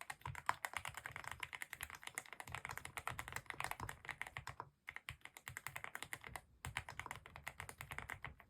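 Fast typing on a Vter Galaxy80 mechanical keyboard with factory-lubed Gateron Milky Yellow Pro linear switches: a dense, rapid run of keystrokes, with two brief breaks, a little past the middle and about three-quarters of the way through.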